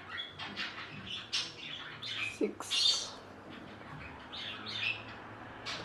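Small birds chirping irregularly in the background, with a few short rustles and knocks as a phone is picked up close to the microphone.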